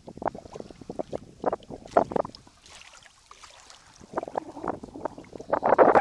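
Small waves lapping and slapping against a kayak hull in short, irregular splashes, heaviest and loudest near the end.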